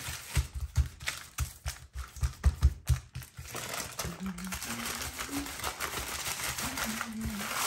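A log of dough being rolled and pressed in a sheet of baking paper on a countertop: a quick run of soft thumps from the hands for the first few seconds, then steady crinkling of the paper as it is wrapped and rolled.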